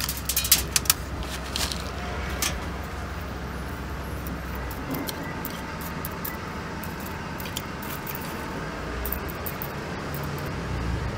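Small top-dressing pebbles clicking and rattling against each other and the ceramic pot in the first couple of seconds as they are spread around the plants, with scattered lighter clicks later, over a steady low background rumble.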